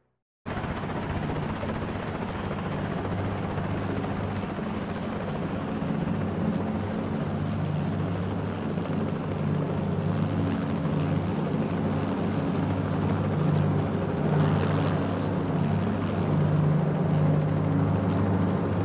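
Helicopter in flight: a steady rotor and engine drone with a low hum, starting abruptly about half a second in.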